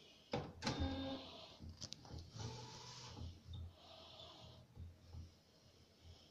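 Epson SC-P600 printer, converted to a one-pass direct-to-garment printer, running its mechanism: a few sharp clicks in the first two seconds, then two short runs of motor whirring.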